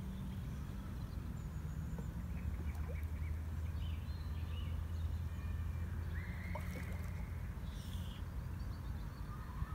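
Steady low rumble of wind on the microphone, with scattered short bird calls and one longer call about six and a half seconds in.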